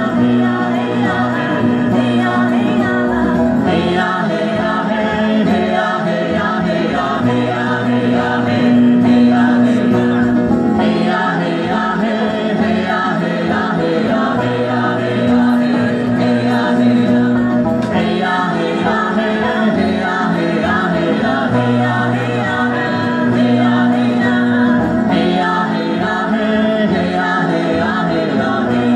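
An acoustic country band plays live, with double bass, banjo and acoustic guitars, and several voices sing together.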